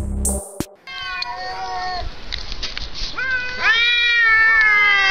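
A short electronic intro jingle ends within the first second. Then two fighting cats caterwaul: long drawn-out yowls that bend slowly in pitch and overlap, growing louder about three and a half seconds in.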